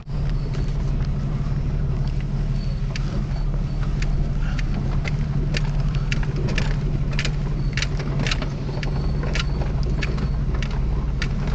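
A vehicle engine running steadily at low revs, heard from inside the cab as it crawls offroad, with a string of irregular sharp clicks and rattles as the truck jolts over the terrain.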